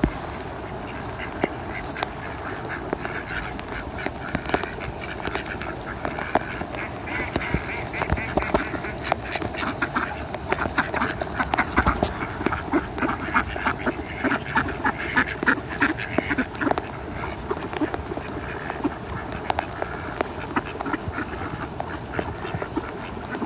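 A crowd of mallard ducks quacking and chattering close by, the calls coming thickest and fastest in the middle stretch.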